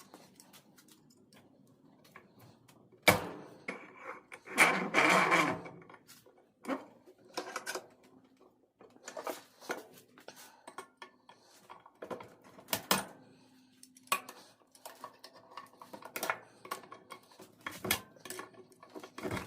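Small metal door-lock parts of brass, zinc and steel clinking and clattering as the lock is taken apart by hand, with a sharp knock about three seconds in and a rattling scrape about a second later.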